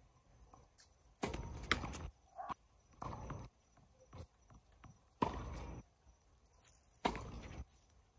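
Tennis balls bouncing on a hard court and being struck by rackets during a doubles rally: a scatter of sharp pops and knocks. Four short bursts of rushing noise, each about half a second long, stand out as the loudest sounds.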